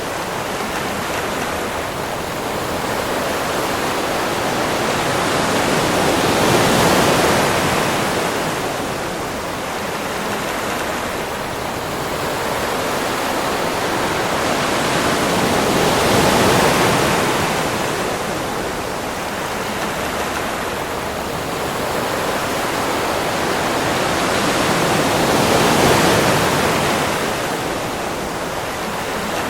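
Ocean waves breaking on a beach: a continuous rush of surf that swells and eases in slow cycles, with three peaks roughly nine to ten seconds apart.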